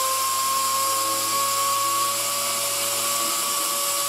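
Air-powered orbital sander running at full speed, a steady whine over hiss with its pitch creeping slightly higher, as the pad grinds old paint and body filler off the steel hood panel of a 1950 Ford.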